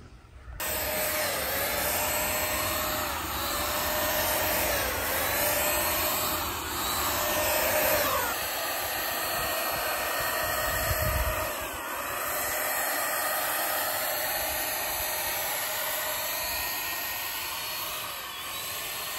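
Handheld electric paint spray gun running steadily, its motor whine dipping slightly in pitch now and then as paint is sprayed.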